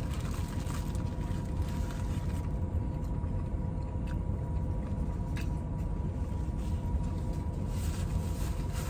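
Steady low rumble of a car idling, heard from inside the cabin, with a faint steady hum over it and a few faint ticks.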